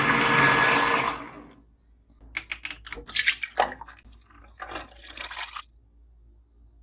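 Liquid being poured and splashing: one steady pour that tapers off after about a second and a half, then several shorter splashy pours and drips over the next few seconds.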